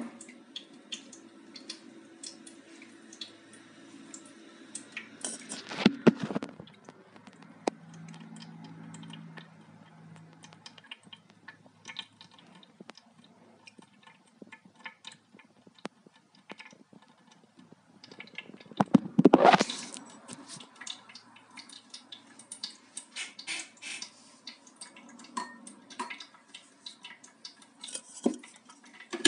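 Water dripping and small plastic knocks and clicks from a Brita Marella XL filter jug being handled at a sink. Two louder, noisier bursts of handling come about six seconds in and again near twenty seconds.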